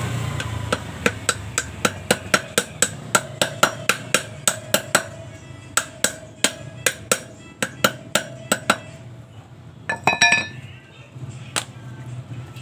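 Claw hammer tapping an old ball bearing used as a driver to seat a new ball bearing into a sidecar wheel hub: a quick, even run of sharp metal strikes, about three a second, with a short break about five seconds in, stopping near nine seconds. About ten seconds in, a brief ringing metal clink.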